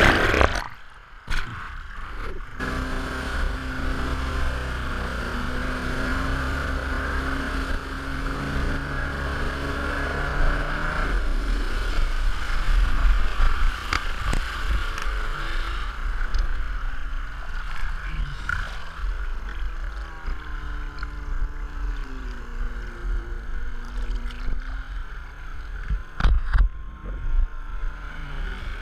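Kawasaki 650SX stand-up jet ski's two-stroke engine running at low speed, steady at first, then its pitch rising and falling in the second half, over a constant wash of water and wind. It opens with a loud splash, and the sound goes muffled for a couple of seconds as the camera dips under the water.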